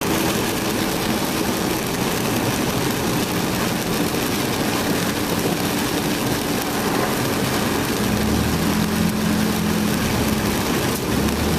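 Heavy rain on a moving car and tyres hissing on the wet road, heard from inside the cabin, over the car engine's steady hum. About eight seconds in, a deeper, stronger engine hum comes in.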